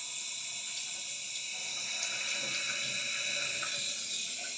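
Newly installed toilet's tank filling with water through its fill valve, a steady hiss, with the supply valve freshly turned on.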